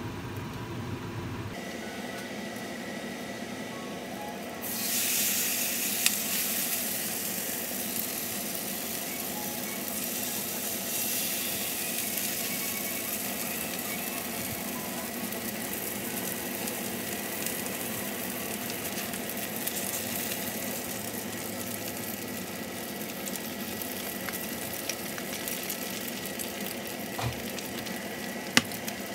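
Green onions and seafood frying in oil in a nonstick pan, a steady sizzle that grows sharply louder about five seconds in. A couple of sharp taps of a utensil against the pan.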